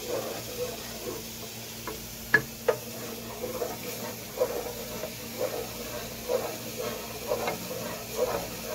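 Wooden spoon stirring a milky mixture in a non-stick pot, a soft scrape about once a second. Two sharp knocks come about two and a half seconds in.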